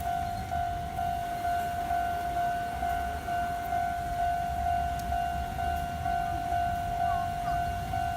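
Japanese railway level-crossing warning bell ringing: an electronic ding at one steady pitch, repeating evenly, the signal that a train is approaching. A low rumble runs underneath.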